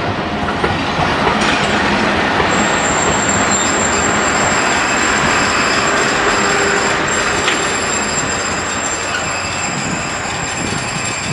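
Passenger coaches rolling past close by, a steady rumble and rattle of wheels on rails. A thin high-pitched wheel squeal joins about two seconds in and holds.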